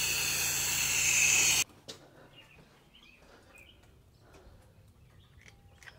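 Pressure washer running and spraying: a loud steady hiss of water over a low hum, which cuts off abruptly about a second and a half in. After it, quiet outdoor ambience with a few faint bird chirps.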